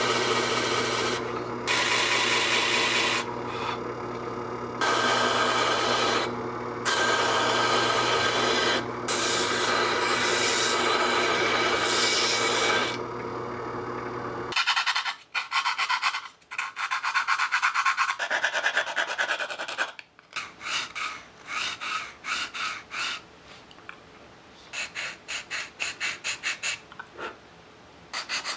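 Bench disc sander running with a small wooden model-ship top pressed against the spinning disc in repeated passes, each pass a loud grinding rasp over the motor hum. About halfway the motor stops, and the sound turns to hand sanding of the wood with a sanding block: scraping strokes, then quick short strokes several times a second.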